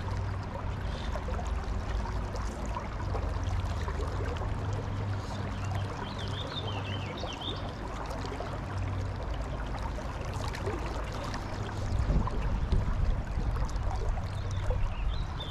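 Steady rush and trickle of flowing river water.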